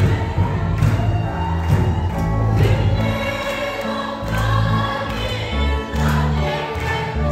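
A congregation singing a gospel worship song together in unison, over a band accompaniment with a deep bass line and a steady beat.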